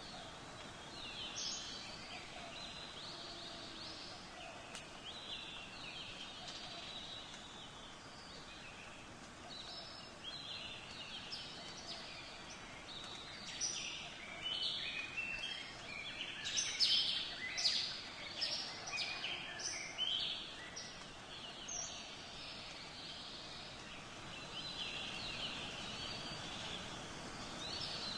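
Birds chirping and calling over a steady background hiss; the chirps are scattered at first, thicken into a busy chorus in the middle, then thin out again.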